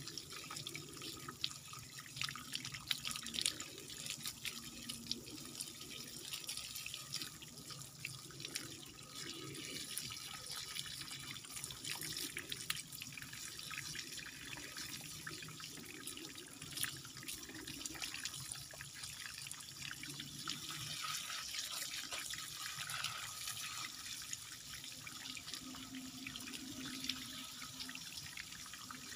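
Water from a garden hose splashing steadily onto a rock and the exposed roots of a bonsai, with frequent sharper spatters as the jet is moved over the roots.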